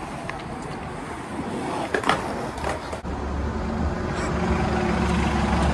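Street noise with a few sharp knocks, then from about three seconds in a city bus's engine idling close by, a steady low hum.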